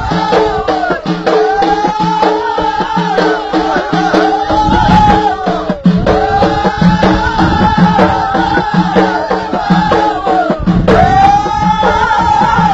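Ahidous, the Amazigh group dance-song: voices singing in chorus, repeating a short arching melodic phrase again and again over steady beating of bendir frame drums.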